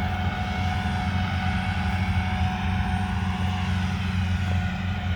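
Farm machinery engines running at a steady drone, with a thin steady whine above the low hum.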